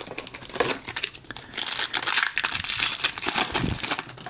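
Crinkling and crackling of a trading-card pack wrapper being handled, dense in the middle seconds, with quick small clicks of card handling.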